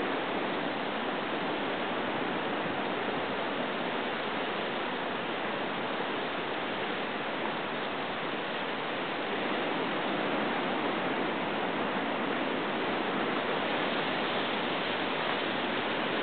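Steady rushing wash of ocean surf breaking on a rocky shore, swelling slightly now and then.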